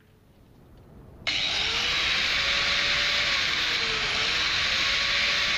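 Angle grinder switched on about a second in. Its motor whine climbs quickly to speed and then runs steady and loud, sagging briefly in pitch near the middle.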